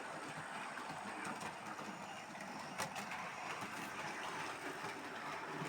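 Hornby model train running along the track: a faint, steady whirr of the small motor and wheels on the rails, with a single click a little before three seconds in.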